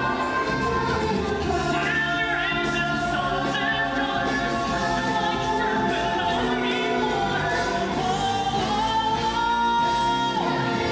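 Music with a choir singing, several voices in melody over the accompaniment; one long held note near the end.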